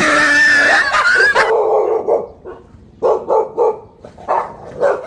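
A dog lets out a long high yelp, then barks in a quick run of about five short barks in the second half, alarmed by a stuffed tiger toy dangled in front of it.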